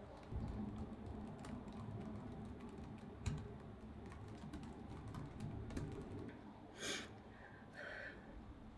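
Faint breathing and small rustling clicks from a person in a face mask, then two short sharp breaths in, about seven and eight seconds in, the lead-up to a sneeze.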